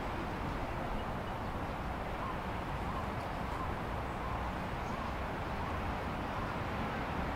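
Steady hum of distant city traffic, with a few faint short chirps in the middle.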